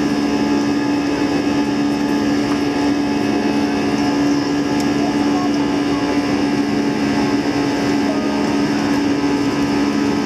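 Airbus A320 jet engines running steadily: a constant drone with several held humming tones over a rush of noise.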